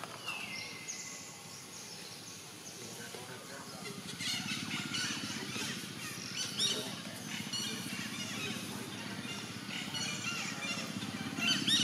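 Outdoor ambience of birds chirping and calling over and over, thickening about four seconds in, over a steady low background murmur.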